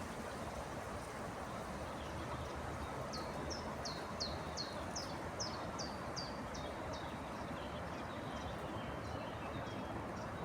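A small songbird singing a series of quick high notes, each sliding downward, about two and a half a second. The song fades away over its last few notes, over a steady background hiss of outdoor noise.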